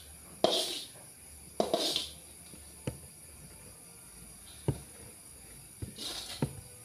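A metal spoon scrapes and knocks against a metal pot and wok while cooked rice is scooped from one into the other. There are short scrapes about once a second, a couple of sharp clicks in between, and a quicker cluster of knocks near the end.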